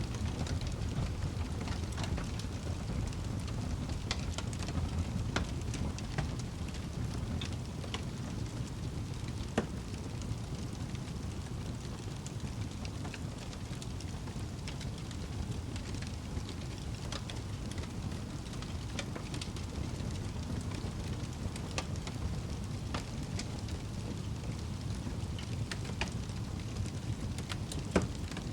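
Wood fire in a fireplace burning with a steady low rumble and irregular crackles and pops, a couple of them sharper and louder.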